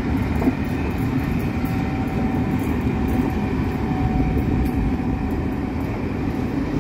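Locomotive-hauled passenger coaches rolling past at close range: a steady rumble of wheels on the rails. A faint thin whine rises over it for a few seconds in the middle.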